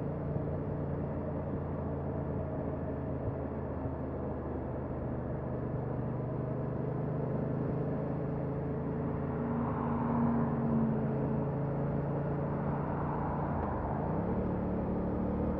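2021 Yamaha MT-07's stock-exhaust 689 cc parallel-twin engine idling steadily, its engine speed starting to rise near the end.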